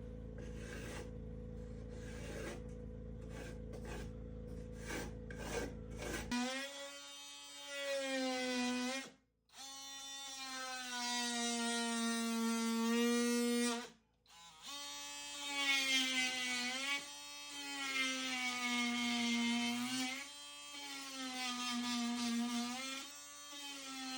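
Electric drill running in long spells, its whine dipping in pitch now and then as it bites, briefly stopping twice. Before it starts, about six seconds of a steady low hum with faint scraping strokes.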